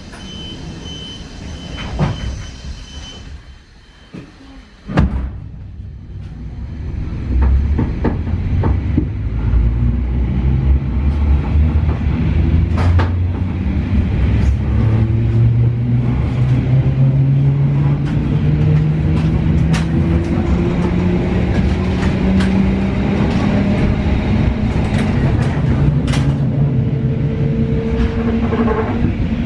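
EN71 electric multiple unit pulling away, heard from inside the carriage. A high steady tone sounds for the first few seconds and a thump comes about five seconds in. Then the wheels rumble and the traction motors whine, rising steadily in pitch as the train accelerates, with occasional sharp clacks from the track.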